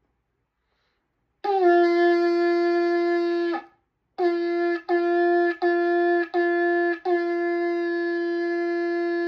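Shofar being blown. About a second and a half in comes one long blast, then four short blasts in quick succession, leading into a long held blast. Every blast is on the same steady pitch.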